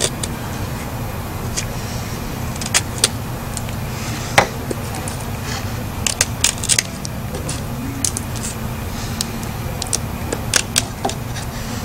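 Blind Horse Knives Bushcrafter steel blade cutting a notch into a wooden stick: irregular short scrapes and clicks as it bites and shaves, some in quick clusters, over a steady low background rumble.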